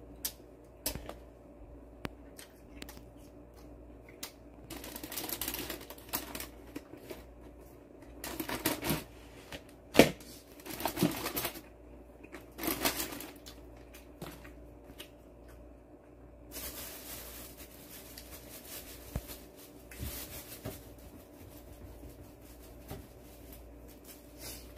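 Close-up eating of crispy fried pork (guobaorou): bursts of crunching and chewing with scattered small clicks, the sharpest about ten seconds in. Over the last several seconds a softer, steady rustle.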